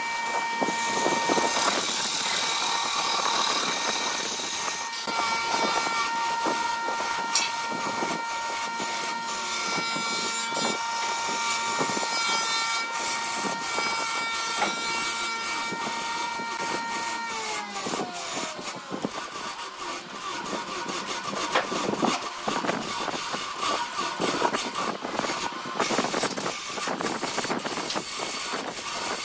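Wood lathe spinning a vase blank while a hand-held turning tool cuts it on the tool rest: a continuous scraping rasp of steel on wood with dense small ticks. Over it runs a steady machine whine that slides lower in pitch about 18 seconds in.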